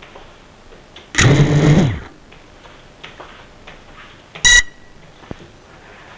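Small FPV quadcopter's brushless motors whirring for just under a second, about a second in. A short, sharp electronic beep follows about four and a half seconds in.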